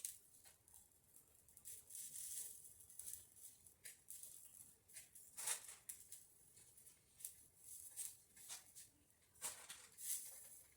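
Near silence, broken by faint, irregular clicks and ticks scattered through the quiet.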